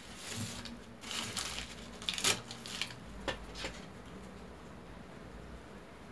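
Handling noises from a small electric juicer motor and its plastic housing being turned over in the hands: rustling, then a handful of sharp plastic clicks about two to four seconds in, then quieter.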